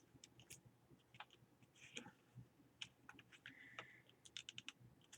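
Faint, irregular ticks and light rustles of paper cut-outs being handled and sorted by hand, with a brief scrape a little past the middle.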